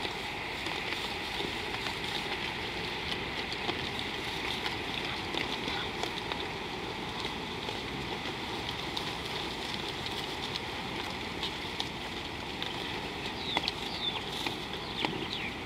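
Steady outdoor ambience: an even hiss, with a few short bird chirps near the end.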